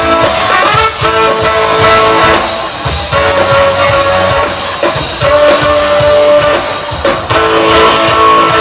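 Live funk-rock band playing an instrumental stretch with electric guitar and a drum kit, loud and continuous, heard from the audience in a large amphitheatre.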